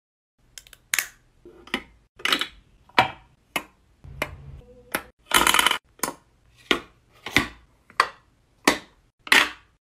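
Makeup products being set one by one into the compartments of a clear acrylic makeup organizer: about a dozen sharp plastic clicks and clacks, with one longer, louder clatter a little past halfway.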